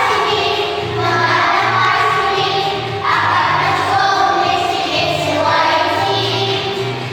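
A song sung by a group of children's voices with instrumental accompaniment, with a repeating bass line under phrases of about a second each.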